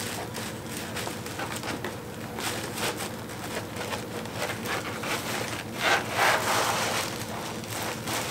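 Tissue-paper wrapping rustling and crinkling as it is handled and pulled about inside a cardboard box, with a louder rustle about six seconds in.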